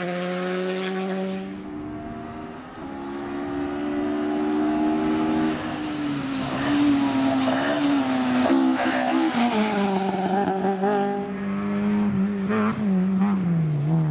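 Rally car engine running hard at high revs, its pitch sagging and then stepping down in several drops in the second half as the car slows and changes down, with a few sharp cracks along the way.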